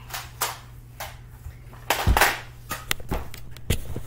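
Irregular sharp clicks and knocks from Nerf play, with a louder thump about two seconds in and a quick run of light clicks near the end.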